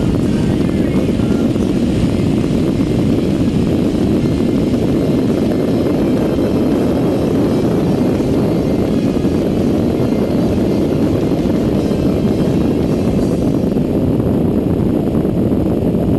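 Steady low wind buffeting and engine noise from a V8 pickup truck driving at speed, picked up by a camera mounted on the outside of the truck by the door.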